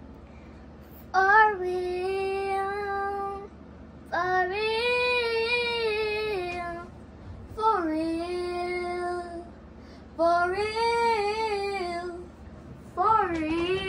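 A young girl singing unaccompanied in long, drawn-out phrases, each held on a steady, slightly wavering pitch, with short pauses between them: four phrases, and a fifth beginning near the end.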